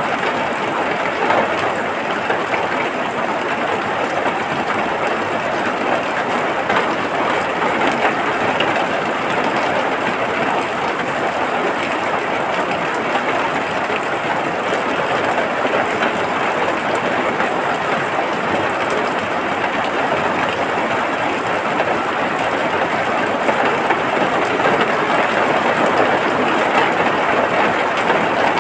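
Steady rain falling, an even unbroken hiss that holds at one level throughout.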